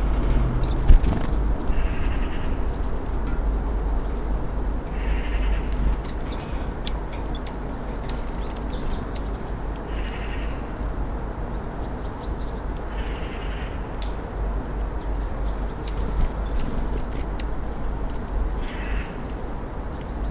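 Steady low rumble of distant traffic, with a short hoarse animal call repeated about five times a few seconds apart and a sharp knock about a second in.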